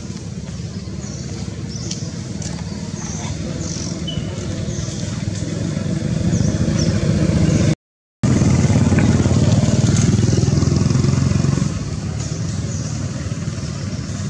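A steady low engine drone that grows louder over several seconds, breaks off for a moment a little past halfway, and drops to a lower level near the end, with short high chirps repeating faintly over it.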